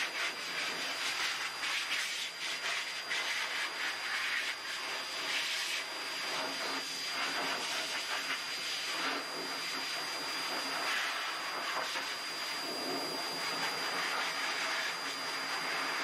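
High-velocity dog grooming dryer blowing air through its hose nozzle onto a wet dog's coat: a steady rushing hiss with a thin high whine. The hiss swells and dips as the nozzle is moved over the fur.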